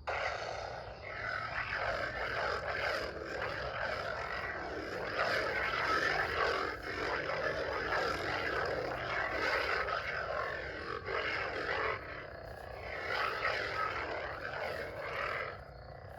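Lightsaber sound effects from the Theory Sabers Soldier hilt's speaker: a steady hum with repeated swelling swing whooshes as the blade is spun and swung. The sound stops sharply near the end.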